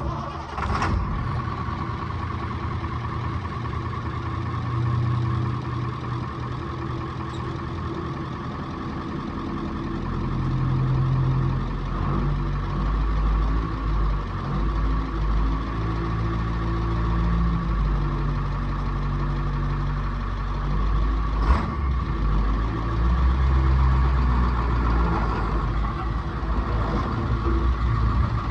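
Heavy vehicle engine running, its low rumble rising and falling, with a steady high whine over it. There is a single sharp knock about two-thirds of the way through.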